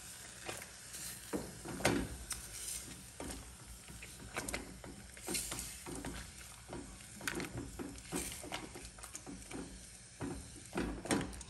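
Wooden fufu stick stirring and working stiff corn fufu dough in a stainless steel saucepan: irregular scrapes and soft knocks against the pot, a few each second.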